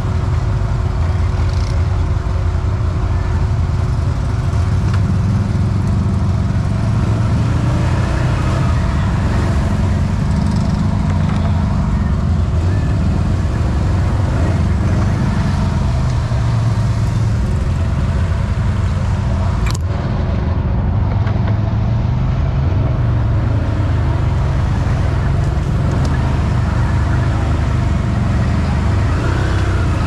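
Can-Am Outlander 1000 XMR ATV's V-twin engine running under a deep, steady rumble, its note rising and falling a little with the throttle. A single sharp click comes about twenty seconds in.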